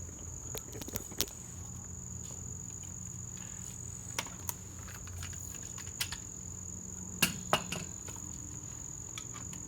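Steady high-pitched insect trill, typical of crickets, with a few scattered sharp clicks and knocks, two slightly louder ones about seven seconds in. No impact-wrench hammering is heard.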